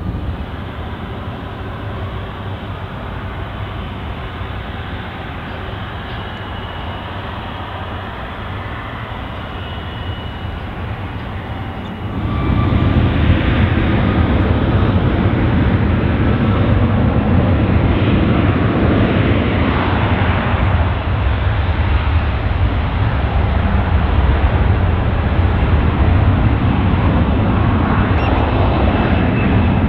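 Airliner jet engine noise: a steady, moderate roar for about twelve seconds, then a sudden jump to a louder, fuller jet roar from an Airbus A330-200 moving on the ground close by, which holds to the end.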